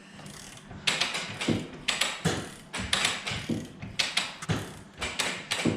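Ratchet wrenches clicking in quick, uneven strokes as they wind Wayne Dalton Torquemaster Plus garage door springs, the clicking starting about a second in.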